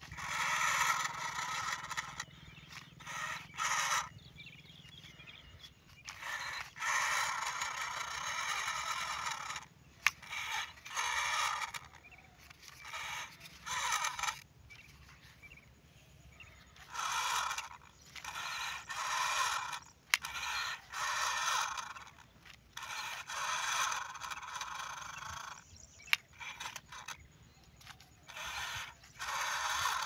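Electric motors and plastic gearbox of a wired-remote toy wheel loader whirring in short bursts of half a second to two seconds. The bursts start and stop again and again as the loader is driven and its arm moved.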